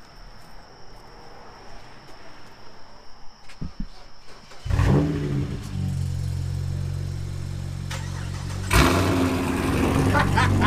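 A car engine starts about halfway through and settles into a steady idle. Near the end it gives a sudden, really loud burst and keeps running louder.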